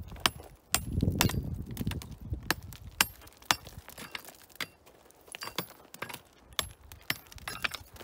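Steel hand hammer striking rock again and again: about a dozen sharp, metallic clinks, unevenly spaced, each with a short ring. Loose stones crunch underfoot about a second in.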